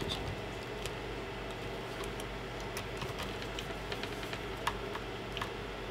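Scattered light clicks from small screws being driven and tightened into the plastic fan mount on a 3D printer's extruder, heard over a steady low hum.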